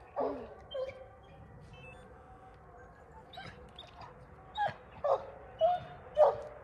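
Young coonhounds yelping and whining at the foot of a tree, learning to tree. A couple of short yelps open it, then after a quieter stretch a run of sharp barks, about two a second, starts about four and a half seconds in.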